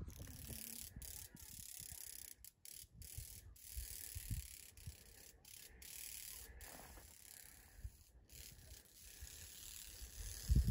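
Faint wind rumbling on the microphone in irregular gusts, over a steady high hiss.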